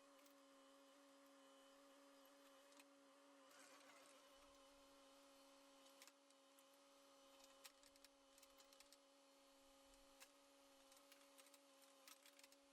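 Near silence: a faint steady hum, with a few faint ticks.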